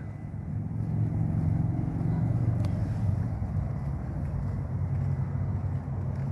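A steady low mechanical hum, like a motor or engine running without letup, with a faint click a little before the middle.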